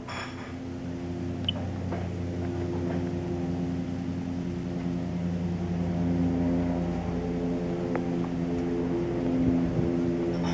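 Helicopter flying low overhead: a steady drone of engine and rotor hum that slowly grows louder as it comes nearer.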